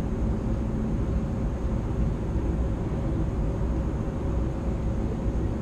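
Steady low rumble with a faint constant hum, the background noise of the hall, with no distinct events.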